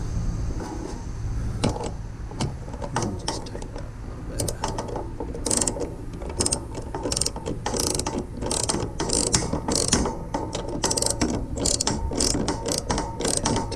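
Socket ratchet wrench clicking as it tightens a headlight mounting bolt, in quick runs of clicks between strokes. The clicks are sparse at first and grow denser from about five seconds in.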